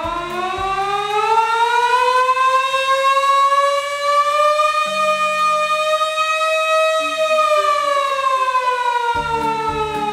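Motor-driven warning siren of the civil-defence or fire-alarm kind winding up to a steady wail, holding it, then winding down in pitch from about three-quarters of the way through. Background music plays beneath it.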